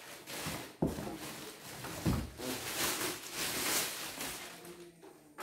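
Plastic packing bag rustling and crinkling as an embroidery machine is pulled out of it and out of its cardboard box, with sharper knocks about one and two seconds in; the rustling eases off near the end.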